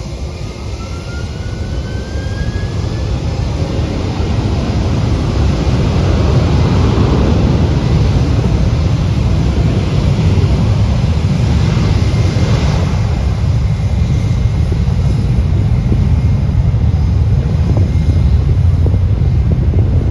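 Jet airliner's engines spooling up to takeoff power with a faint rising whine, building into a loud steady rumble as the aircraft starts its takeoff roll.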